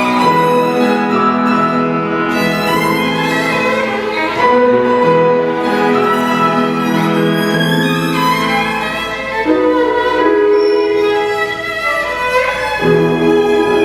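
Classical music on violin, held notes played with a slight vibrato, with other notes sounding beneath them.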